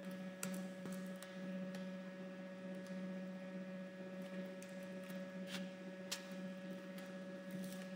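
Steady electrical hum with several scattered computer-keyboard key clicks as characters are typed.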